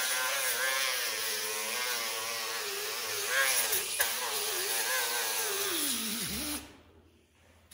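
Pneumatic right-angle grinder with a small abrasive disc whining at high speed against the metal of a vise, its pitch wavering under load. Near the end the trigger is let go and the whine drops in pitch and stops.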